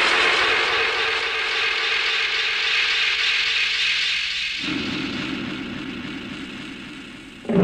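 Dramatic cartoon soundtrack sting: a sudden loud hissing crash that rings on and slowly fades over several seconds, with a low rumbling tone joining about two-thirds of the way through.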